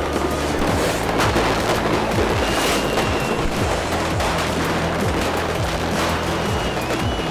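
New Year's Eve fireworks: rockets and firecrackers going off in rapid, irregular bangs, with a short whistle about three seconds in and another near the end. Music with steady bass tones plays underneath.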